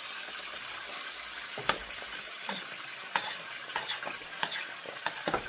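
A spoon stirring thick, stiffening cou-cou (cornmeal and okra) in a pot, with a sharp knock about two seconds in and several lighter knocks after it. Under it runs a steady sizzle of frying.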